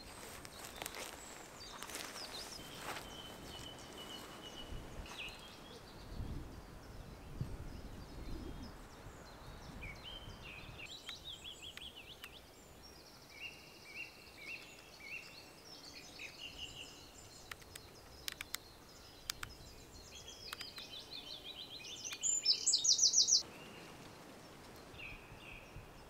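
Woodland songbirds singing, several short phrases and repeated notes coming and going, with one bird's loud rapid trill near the end.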